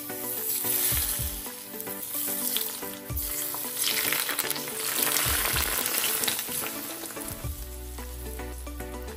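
Hot oil poured over raw chopped garlic and red chilies, sizzling in two spells with a pause between them.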